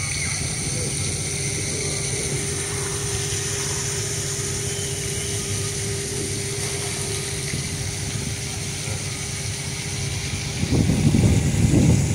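Steady low engine rumble with a faint steady hum above it. About eleven seconds in, wind starts buffeting the microphone in loud gusts.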